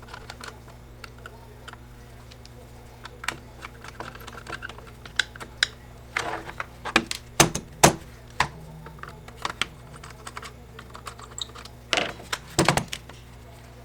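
Small screws and tools clicking and clattering as screws are taken out of a plastic power-tool housing and set down, in irregular light clicks with clusters of louder clacks in the middle and near the end.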